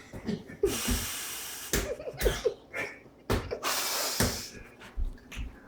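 A baby scrambling in an open dishwasher: water splashing in the tub in two short bursts, with knocks against the rack and door and a few short baby grunts.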